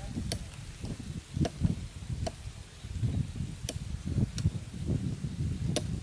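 Water buffalo grazing, tearing and cropping grass with irregular muffled rips, and a few sharp snapping clicks.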